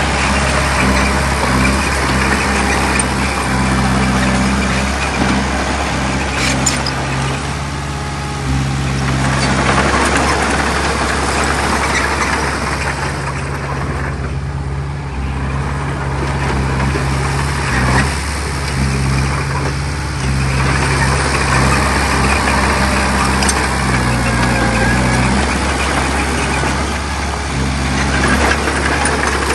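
A bulldozer's heavy diesel engine running steadily under changing load. A noisy grinding clatter swells and fades several times over the engine drone, easing off twice for a few seconds.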